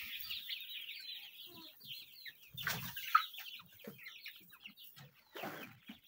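A flock of six-week-old layer pullets clucking and calling in many short, high notes. Two soft thumps come a little under halfway through and again near the end.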